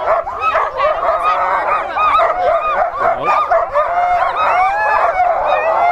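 A team of harnessed sled dogs in the start chute, many barking and yelping at once in a steady, overlapping clamour of short rising-and-falling yips. This is the noise of teams eager to be let go at the start line.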